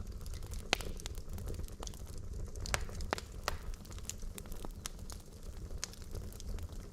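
Wood logs burning in a fireplace, crackling with frequent irregular sharp pops of varying loudness over a steady low rumble.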